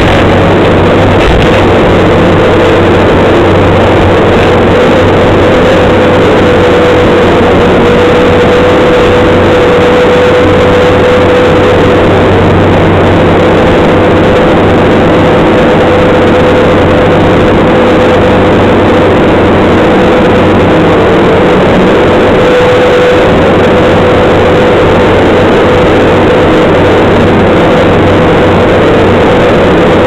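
Bobcat skid steer loader's diesel engine running steadily and loud from inside the cab, with a steady high whine over it while the machine drives.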